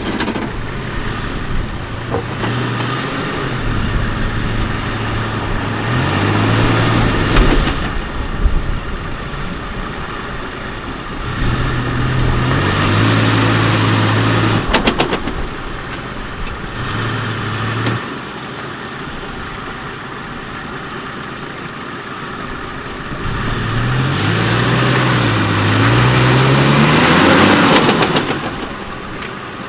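Toyota Land Cruiser Troopy 4x4 crawling up a rutted, rocky track, its engine working in surges that rise and fall as it picks over the ruts. It is loudest near the end, as the engine note climbs while the vehicle comes up toward the camera.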